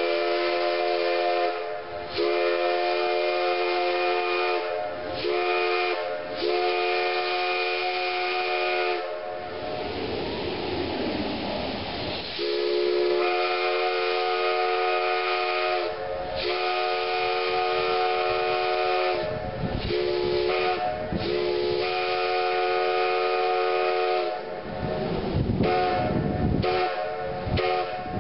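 A multi-chime steam locomotive whistle sounds a chord of several tones in a series of blasts, mostly long with some short. A burst of steam hiss comes about ten seconds in, and there is hissing and rumbling between the blasts near the end.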